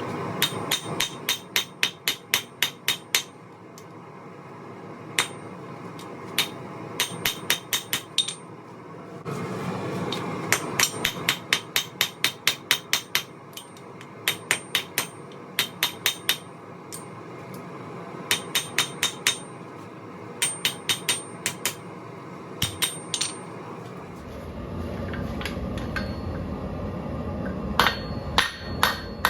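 Hammer blows on steel over an anvil, in quick runs of about three to four strikes a second with pauses between, each strike ringing high. A steady rushing hum of the lit forge runs beneath and grows louder near the end.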